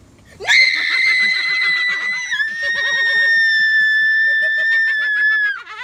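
A person's long, shrill scream held on one high pitch for about five seconds, dipping slightly partway through and falling away at the end.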